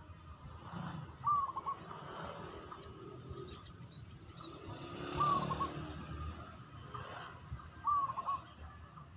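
Perkutut (zebra dove) cooing: three short, clear coo phrases, each a quick cluster of notes, about three seconds apart, over a low background rumble.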